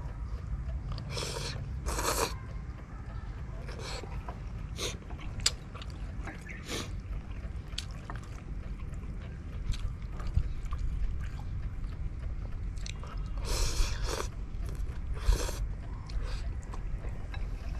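A person eating a bowl of instant noodles: slurping and chewing, with short sharp clicks of chopsticks and spoon against the bowl.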